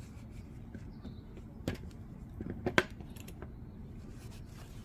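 A few light clicks and taps of small folding-knife parts and tools being handled during disassembly and cleaning, the sharpest a little under three seconds in.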